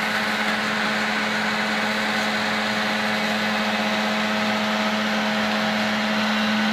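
Vacuum cleaner running steadily: an even rush of air over a constant motor hum.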